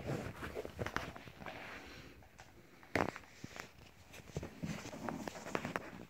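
Handling noise: irregular light knocks, clicks and rustles, with one sharper knock about three seconds in.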